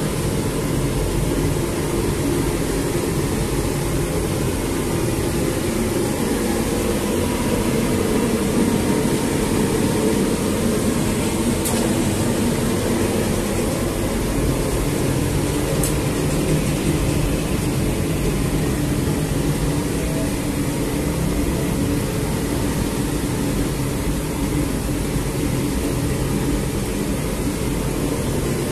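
Large commercial bread-dough mixer running steadily, its motor and turning bowl making a constant low mechanical drone as the dough hook works a big batch of dough.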